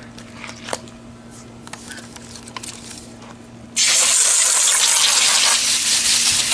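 A few light clicks and knocks, then about four seconds in a hose nozzle starts spraying water with a steady, loud hiss.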